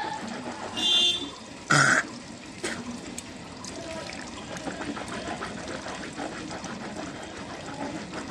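Tap water running into a sink during tooth brushing, with two loud short noises about one and two seconds in and faint clicks after.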